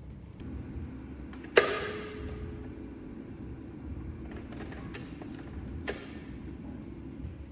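A smart lock being handled: one sharp metallic clack with a brief ring about a second and a half in, a softer click near the end, and a few faint ticks over a low steady hum.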